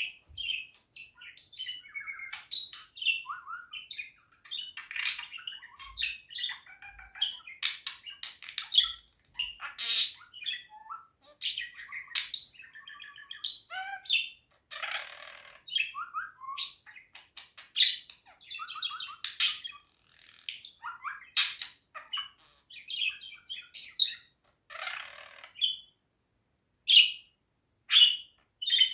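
Budgerigar warbling: a continuous stream of quick chirps, clicks and chattering notes, broken by a couple of longer, scratchy calls about halfway through and near the end.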